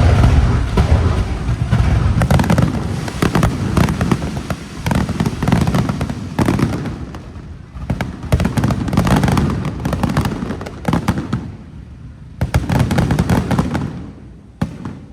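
Fireworks display: aerial shells bursting with deep booms and rapid crackling reports, coming in dense overlapping waves that thin out about eleven seconds in before a last loud flurry near the end.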